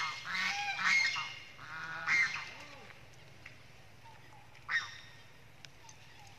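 Long-tailed macaque calls: a run of short, high-pitched cries over the first two and a half seconds, then one brief call near five seconds.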